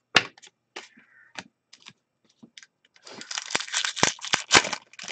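Trading cards and their plastic packaging being handled by hand: a few sharp clicks and snaps of card stock, then about two seconds of dense crinkling and rustling near the end.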